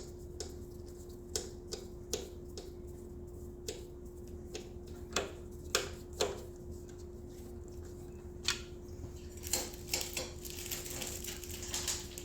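Irregular light clicks and taps of small screws and a screwdriver being handled and started into a motorcycle headlight mount, over a steady faint hum. Near the end comes a longer scratchy rasp.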